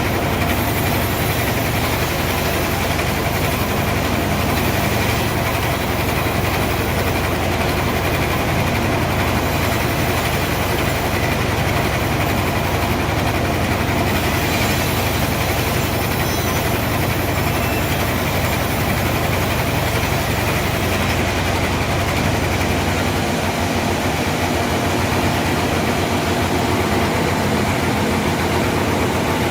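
Band sawmill running steadily, its motor giving a continuous even hum with several steady tones; the low part of the hum changes a little over two-thirds of the way through.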